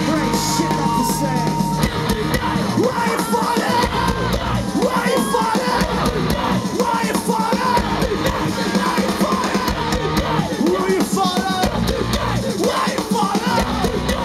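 Live punk rock band playing loud through a festival PA: electric guitars, bass and drums, with a crowd yelling and singing along. Steady low bass and guitar notes run under the crowd's voices.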